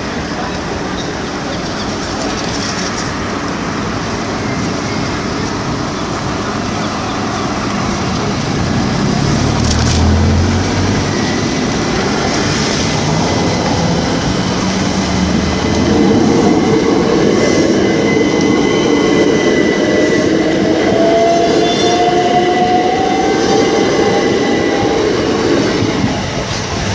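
Class 377 Electrostar electric multiple unit pulling away and passing close by over a level crossing. Its wheels run on the rails, and the traction motors whine, rising in pitch as it picks up speed. It is loudest as the carriages go past.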